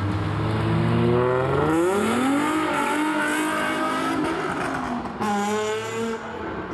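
A car pulling away hard, its engine revving up in rising pitch and its tyres squealing. A fresh tyre squeal comes about five seconds in, then the sound fades as the car goes.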